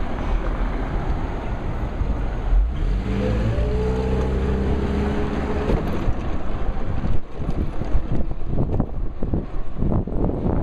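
Wind rushing and buffeting over a shirt-pocket camera's microphone on a moving electric bike. About three seconds in, a motor whine rises in pitch and holds until about six seconds. Near the end comes a run of sharp knocks and buffets.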